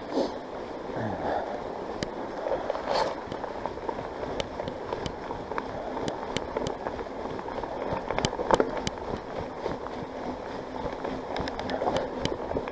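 On-One Parkwood mountain bike ridden along a wet trail: a steady rush of tyre and wind noise with frequent sharp rattles and clicks from the bike over bumps, loudest about eight seconds in.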